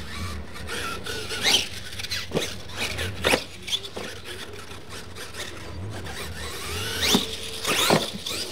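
Radio-controlled monster truck's motor whining in short throttle bursts, the pitch shooting up and dropping back several times, loudest about a second and a half in and again near the end as it runs at a ramp.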